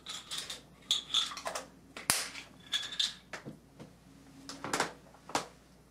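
Close handling noises: short rustles of clothing and movement with several sharp clicks and knocks, the sharpest a single click about two seconds in, as a drinking glass is passed from hand to hand.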